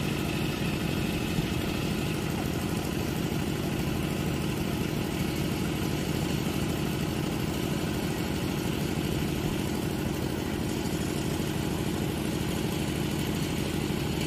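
Kubota rice combine harvester's diesel engine running steadily at an even pitch.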